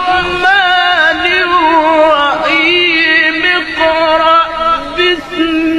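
Melodic Quran recitation (tilawah): one voice drawing out long, wavering, ornamented phrases, with brief breaks between them.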